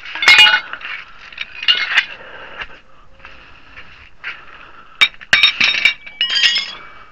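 Metal hand tools clinking and clattering against one another as they are picked up and handled, in a few short clusters of sharp ringing clinks with a quieter stretch in the middle.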